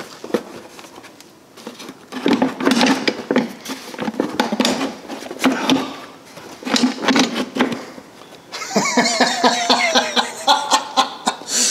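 Plastic clutch cover on an ATV being worked loose and pulled off by hand: a run of knocks and clatters, then a longer grating scrape with a squeal in it as the cover comes away near the end.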